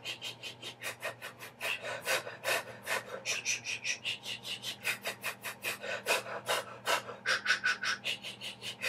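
Rapid unpitched breath pulses, short hissed 'sh' and 'f' sounds at about five a second, pumped by the abdominal muscles in a singer's breath-support exercise.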